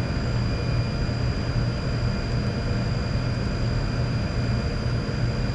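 Steady mechanical hum with a thin, high-pitched whine over it, constant throughout.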